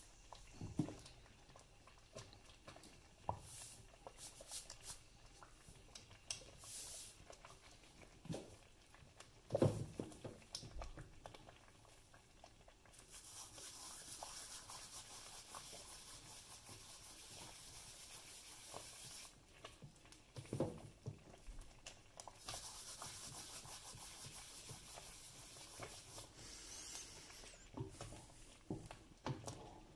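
Palms rubbing dried herb leaves together, crumbling them into a pot, a dry rustling hiss in two stretches of several seconds. Scattered light clicks and knocks of a wooden spoon and hands against a steel pot come between them.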